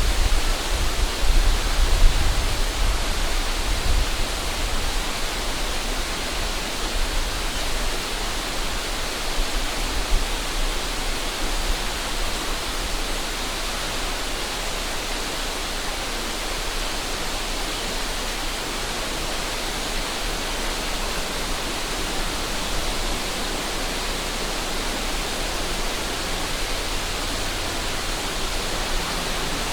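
A river rushing steadily. Low wind rumble buffets the microphone in the first few seconds, then dies away.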